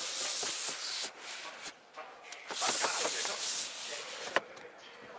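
Tractor cab's roof sun blind being pulled along its rails, a rubbing, hissing slide in two pulls, the second starting about two and a half seconds in, then a sharp click a little after four seconds.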